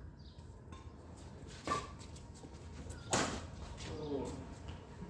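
Badminton rackets hitting a shuttlecock during a rally: two sharp strikes about a second and a half apart, the second louder. A faint voice comes in near the end.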